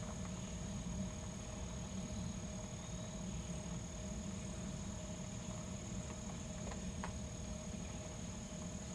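Insects droning steadily at a high pitch in summer woods, over a low steady rumble, with a couple of faint ticks about seven seconds in.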